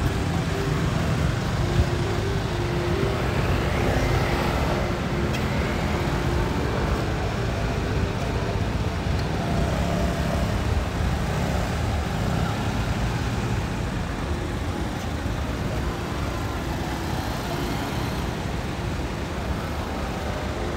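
Road traffic at a city intersection: cars and a motor scooter passing, with a steady hum of engines and tyres.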